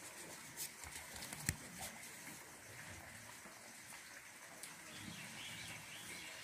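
A plastic ruler being moved and set down on drawing paper on a board: a few light clicks and taps, the sharpest about a second and a half in, over a faint background hiss.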